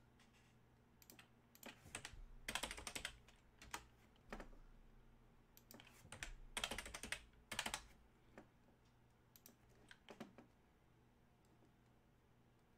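Typing on a computer keyboard: short bursts of quick key clicks with pauses between, the busiest runs about two seconds in and again around six to eight seconds.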